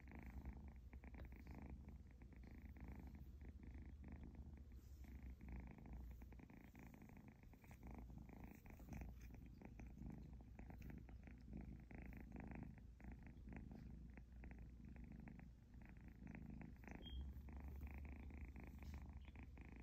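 Egyptian Mau kitten purring steadily while being petted, a continuous low, fine-grained rumble.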